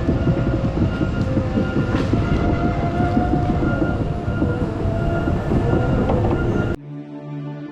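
Heavy logging machinery working: a diesel engine's steady whine over a dense, loud clatter, which cuts off abruptly near the end and gives way to music.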